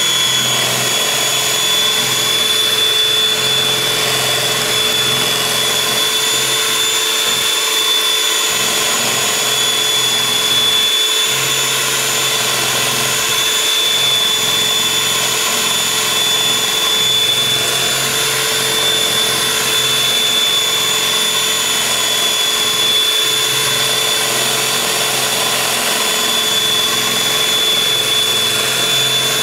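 Electric hand mixer running at a steady speed, a high, even whine as its beaters whir through sugar, oil and eggs being creamed into cake batter.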